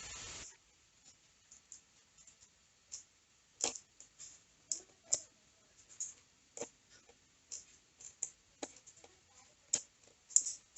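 Irregular light clicks and taps of small computer parts being handled during a PC build, after a brief hiss at the very start.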